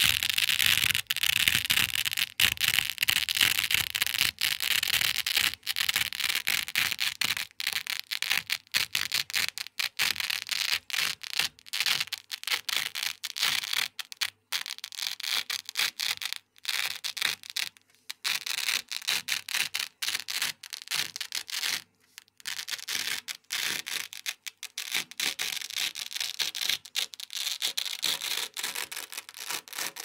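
Green loop-side hook-and-loop fabric rubbed and pulled against a black hook-side Velcro base, the hooks catching and tearing free in a dense, continuous crackle broken by brief pauses.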